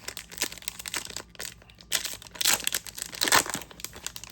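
Plastic wrapper of a Goddess Story trading-card booster pack crinkling and tearing as it is opened by hand, loudest between about two and three and a half seconds in.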